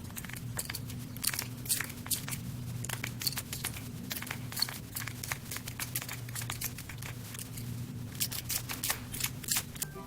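A chick pecking at a pancake: an irregular run of quick, sharp little taps and crunches, over a steady low hum.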